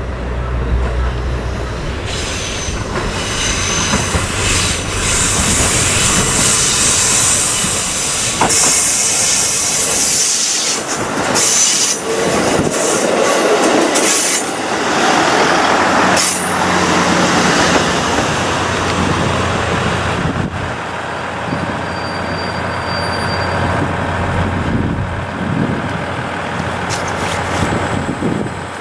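KIYA 95 diesel track-and-catenary measuring train running past on the rails: wheel and track noise with high-pitched wheel squeal and sharp rail clicks, loudest in the middle and easing off over the last several seconds.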